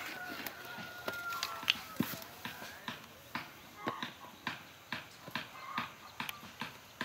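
Light clicks and taps, about two a second, as a plastic bottle and a small metal engine part are handled.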